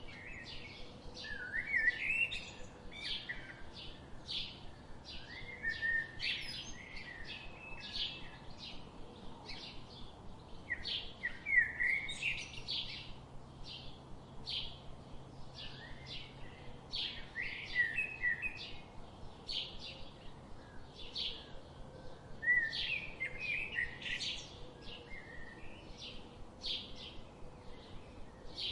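Goslings peeping: a steady run of short, high peeps, several a second, broken every few seconds by a longer wavering whistle.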